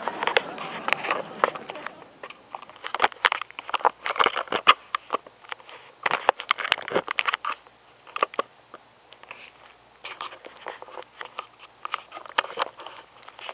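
Camera handling noise: irregular rustles, scrapes and knocks as the camera is shifted about against a fuzzy fleece surface. The knocks are busiest in the first half and thin out later.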